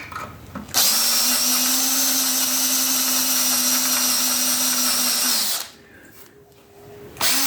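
Electric drill drilling out a broken steel bolt: it runs at a steady speed for about five seconds, then stops, and gives a short second burst near the end.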